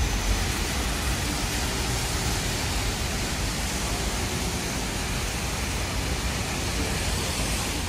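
Steady rushing noise with a low rumble underneath, unchanging throughout.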